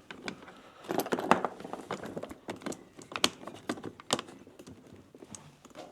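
Irregular clicks, taps and light rattles of hard plastic parts being handled, a quick cluster about a second in and scattered clicks after.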